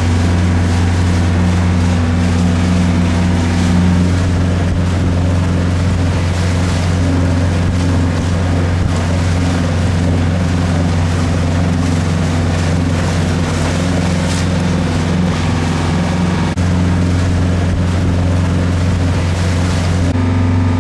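A sailboat's engine running steadily at constant speed while the boat motors along, a steady low drone with the rush of water and some wind noise over it.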